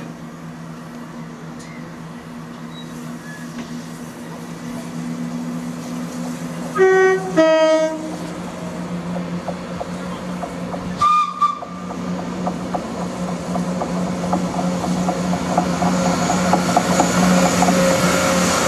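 ScotRail Class 170 Turbostar diesel multiple unit coming into the station and past: a steady diesel drone throughout, a two-tone horn (a higher note, then a lower one) about seven seconds in, and a short higher toot around eleven seconds. It then grows louder, with the rhythmic clicking of wheels over rail joints as it draws alongside.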